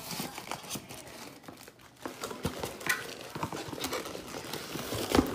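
Clear plastic packaging crinkling and crackling as it is handled, with a sharper click near the end.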